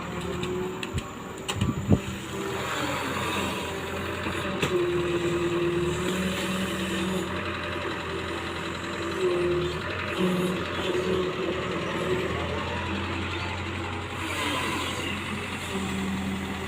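Excavator's diesel engine running steadily, with a few sharp knocks about two seconds in.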